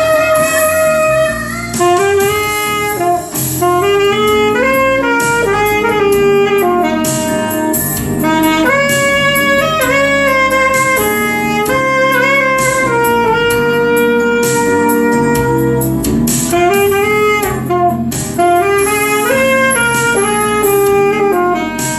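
Alto saxophone playing a solo melody: phrases of moving notes with a long held note a little past the middle and brief breaks for breath between phrases.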